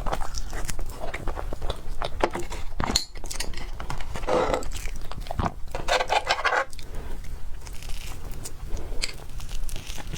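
Close-miked eating sounds: biting and chewing with many small mouth clicks, and two short louder noisy spells about four and six seconds in.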